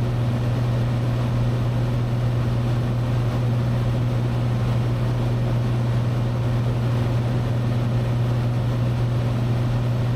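Steady drone of a Cessna 182T's Lycoming IO-540 six-cylinder engine and propeller at cruise, heard from inside the cabin, holding one even low hum throughout.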